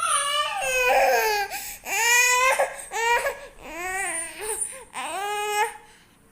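A young child crying in a run of about five high, wavering wails, each rising and falling in pitch, dying away near the end.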